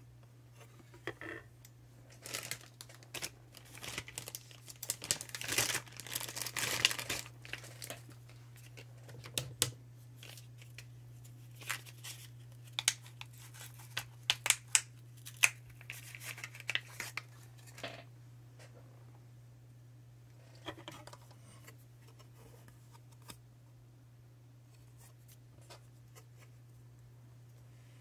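Plastic packaging crinkling and tearing for several seconds as the new rotary encoder is unwrapped, then a scattering of sharp clicks and light handling. A low steady hum runs underneath.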